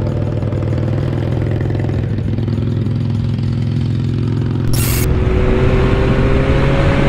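Motorcycle engine running steadily at low road speed with a low rumble. After a short burst of noise about two-thirds of the way in, a different motorcycle is heard accelerating, its engine pitch rising steadily over rushing wind noise.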